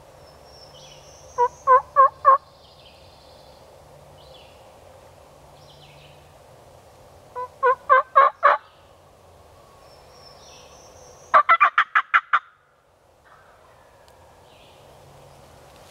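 A hunter's turkey call sounding three series of hen yelps, about four, six and then eight notes, the last series quicker, calling to a gobbler. Songbirds sing faintly in the background.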